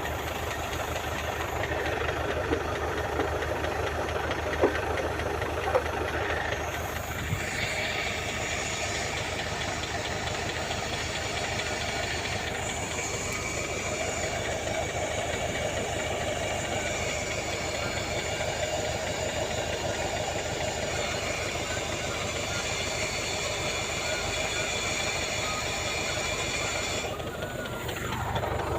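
An engine running steadily with an even, fast low beat, with a few sharp clicks in the first several seconds.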